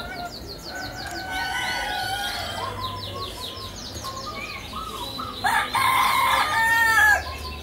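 A rooster crows loudly in a call of several parts lasting about a second and a half, starting about five and a half seconds in. Before it, quick high chirps of small birds and softer fowl calls come from the surrounding cages.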